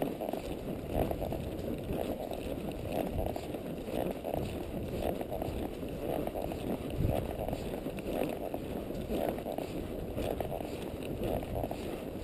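Palomino horse walking along a dry dirt trail: a steady run of muffled footfalls and rustling, swelling and fading about once a second.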